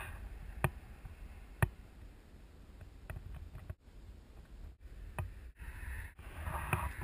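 Longboard wheels rolling on asphalt: a quiet low rumble with a few sharp clicks as the wheels cross bumps and cracks in the road, swelling slightly near the end.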